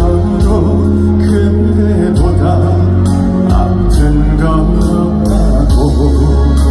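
Live band music with a male singer performing a Korean trot-style song.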